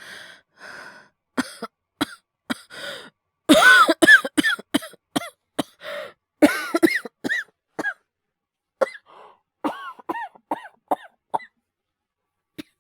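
A man's acted coughing fit, performed as a feverish cold: a few light coughs, then a hard run of loud, close-set voiced coughs from about three to five seconds in, tailing off into scattered lighter coughs that stop about a second before the end.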